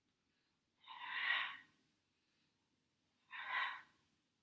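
A person breathing out hard through the mouth twice, each exhale lasting just under a second, a few seconds apart. These are effort breaths timed to the repetitions of a Pilates plank exercise.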